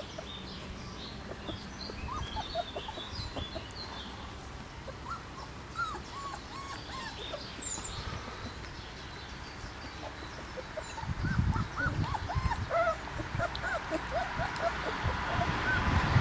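Bernese Mountain Dog puppies whimpering in many short, high squeaks. Past the middle, low bumping and rumbling noises join in and grow louder.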